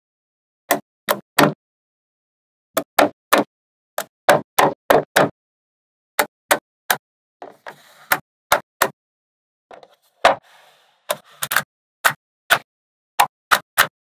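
Small magnetic balls snapping onto one another, a sharp click for each ball, coming in irregular runs of two or three. A brief rattling rustle of balls comes twice, about eight and ten seconds in.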